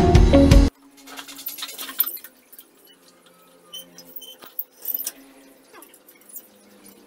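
Music cuts off abruptly under a second in. After that come faint clicks and a few short squeaks from a well rope running over a pulley as a bucket is hauled up.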